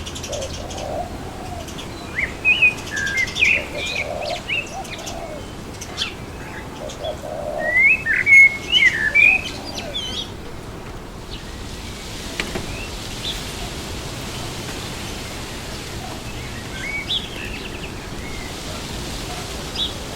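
Birds chirping and calling in quick bursts over a steady rush of wind through trees. The calls thin out about halfway through, leaving mostly wind with a few chirps near the end.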